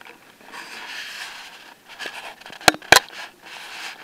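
Handling noise on a handheld camcorder's body: soft rubbing, then two sharp clicks about a quarter second apart from its buttons being pressed as it is switched into infrared night-vision mode.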